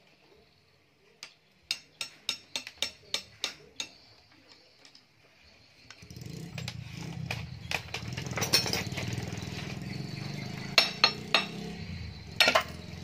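Sharp metallic taps and clinks of hand tools on a Honda Tiger's aluminium crankcase as it is worked apart during teardown: about nine quick taps around one to four seconds in, then scattered clinks. A steady low rumble comes in about six seconds in.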